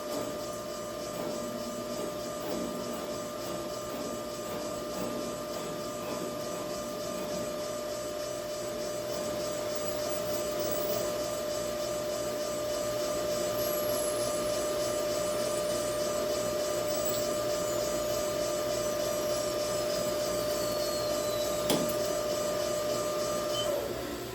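A shop machine's electric motor runs steadily with a constant whine over a hiss. It shuts off near the end, followed by a sharp click.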